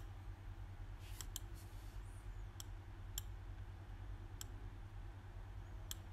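Computer mouse clicks, about seven single clicks spread unevenly over six seconds, over a steady low hum.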